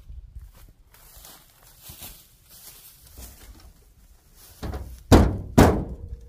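Hood of a 1980s Chevy K30 truck being handled and then banged down twice, two loud metal thunks about half a second apart near the end, the second leaving a ringing tone. The hood latch is stuck. Light knocks and rattles come before the hits.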